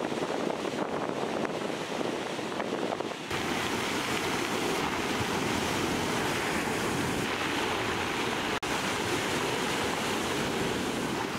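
Sea waves breaking over rocks and surf washing up a pebble beach: a steady rush of water. The sound changes abruptly a little over three seconds in and drops out for an instant about three-quarters of the way through.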